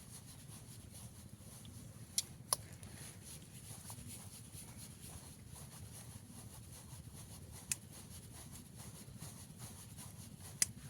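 Faint steady outdoor background with a high, even hiss and a low rumble, broken by four sharp clicks: two close together about two seconds in, one near the eight-second mark and one near the end.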